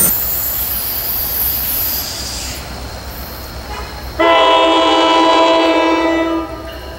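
NJ Transit PL42AC diesel locomotive sounding its horn once, a chord of several tones held for about two seconds, over the low rumble of the approaching train.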